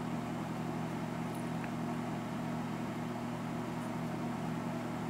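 Steady low mechanical hum with no changes, room background noise between remarks.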